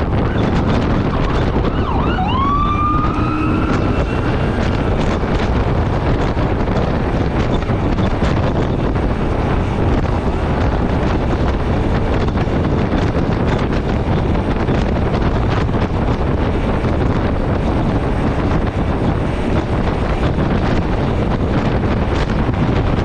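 Steady wind rush on the microphone and road noise from a Yamaha Ténéré 700 cruising at highway speed, its 689 cc parallel-twin engine running underneath. About two seconds in, a short siren-like tone rises quickly and then keeps gliding upward for about two seconds.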